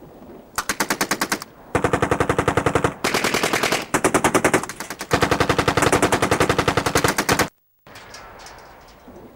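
MP40 submachine gun firing in several long bursts at about ten shots a second, the fire cutting off abruptly near the end.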